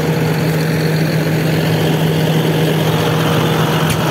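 John Deere tractor's diesel engine running steadily, a constant low hum.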